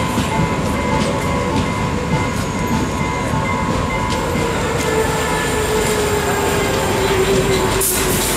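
Passenger train running slowly along a station platform, a steady rumble with a tone that falls in pitch as it slows to a stop. A brief sharp noise comes near the end.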